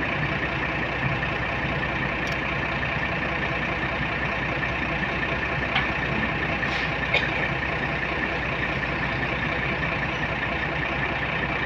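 Heavy diesel engine running steadily, with a couple of faint ticks about six and seven seconds in.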